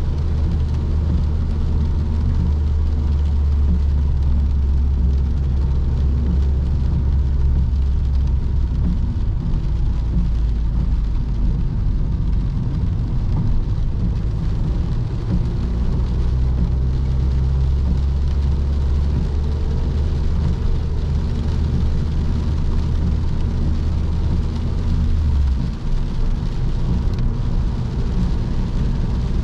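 Ford Focus 1.6 four-cylinder petrol engine running under way, with tyre and road noise, heard from inside the car as a steady low drone. The drone drops briefly about 25 seconds in, then picks up again.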